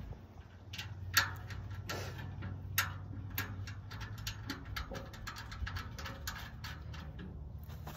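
Irregular metal clicks and taps as the parts of a black steel BBQ pit are handled and fastened together, with a steady low hum underneath.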